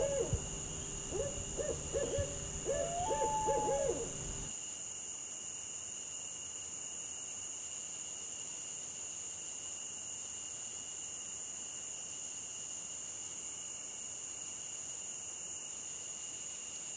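An owl hooting, a run of short hoots with one longer drawn-out note, stopping about four seconds in. After that only steady, high-pitched insect trilling is left, as of crickets at night.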